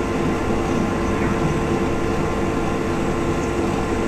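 Steady, unchanging mechanical hum and low rumble with a few held tones, picked up by an open microphone.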